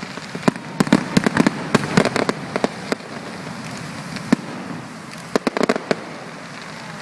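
Fireworks display going off in quick volleys of sharp bangs and pops. There is a dense run in the first couple of seconds, a single bang a little past four seconds in, and another quick cluster around five and a half seconds.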